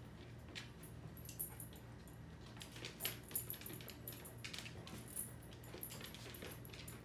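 Scattered light clicks and faint metallic jingles from an Entlebucher Mountain Dog puppy moving about on a hardwood floor: claws ticking on the boards and its collar jingling, over a low steady hum.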